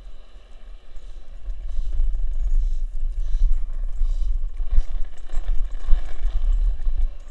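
Skateboard wheels rolling over asphalt and brick paving: a steady low rumble that swells about a second and a half in, with a couple of sharp knocks near the five- and six-second marks.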